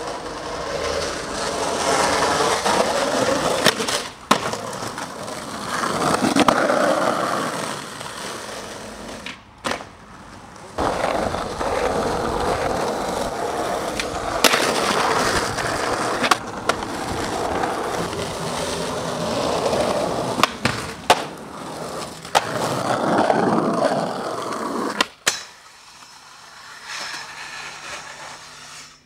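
Skateboard wheels rolling on rough asphalt, broken by sharp pops and slaps of the board as tricks are popped and landed. The rolling stops and starts abruptly several times, across a string of cut-together clips.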